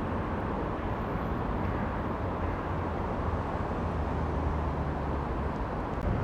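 Steady outdoor city background noise: a low, even hum of distant road traffic.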